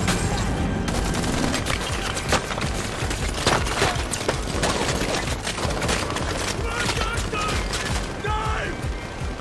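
Heavy gunfire: a dense run of rapid, closely spaced shots, sustained throughout.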